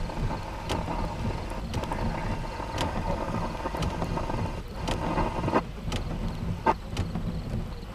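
Thunderstorm wind rumbling low and steady on the microphone, with about six sharp taps scattered through it.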